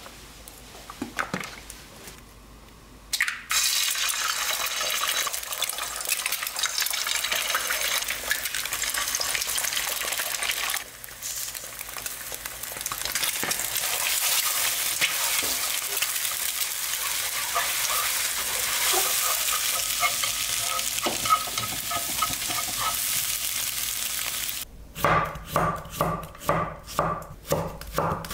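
Eggs frying in oil in a nonstick frying pan: a steady sizzle that starts a few seconds in while wooden chopsticks stir the eggs. Near the end, a chef's knife chops cucumber on a wooden cutting board in quick, even strokes.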